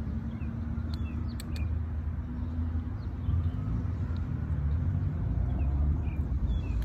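Outdoor ambience: a steady low rumble, with small birds chirping faintly now and then and a few light clicks about a second in.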